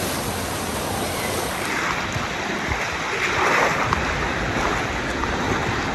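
Water rushing down a water slide and splashing out into the pool, a steady rush that grows a little stronger about two seconds in.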